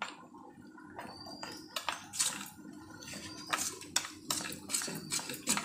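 Metal spoon clinking and scraping against a small stainless-steel bowl while beating cornflour with hot milk into a smooth paste; irregular clicks that come quicker in the second half.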